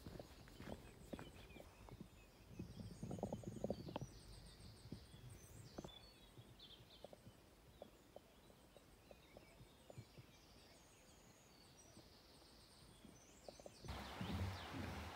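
Quiet forest ambience: faint songbirds calling with short high repeated notes and trills, over scattered soft knocks and rustles. Near the end a louder rustling hiss sets in abruptly.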